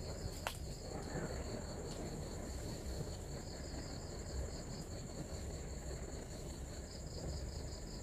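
Night insects trilling: one steady high-pitched trill continues throughout, while a second insect adds a quick pulsing trill in bursts, around the middle and again near the end. A sharp click sounds about half a second in.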